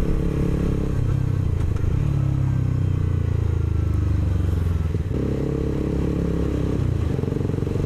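Suzuki GSX-R150's single-cylinder engine through an aftermarket racing exhaust fitted with a dB killer, heard from the rider's seat as the bike slows in traffic. The engine note drops off the throttle, then picks up again about five seconds in, with another change near seven seconds.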